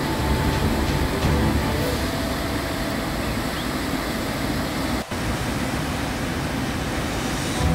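Steady rushing of the Little Qualicum Falls waterfall pouring through a rock gorge, with a brief break about five seconds in before the rushing carries on.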